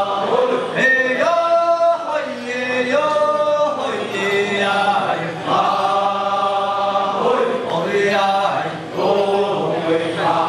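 Amis men's group chanting a harvest-festival dance song together, long held notes alternating with shorter phrases that move in pitch.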